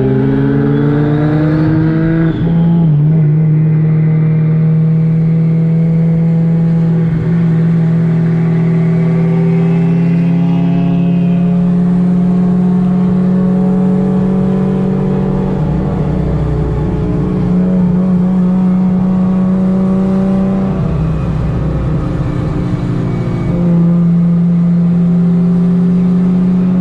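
Toyota Supra MKIV's 2JZ-GTE straight-six engine under way. Its pitch rises over the first two seconds or so as the car accelerates, then it holds a steady drone at cruising revs, with small shifts in pitch.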